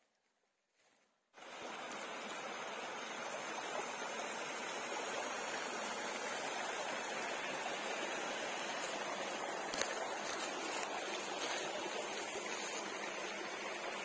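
Small woodland brook running over stones: a steady rush and burble of water that starts abruptly about a second and a half in.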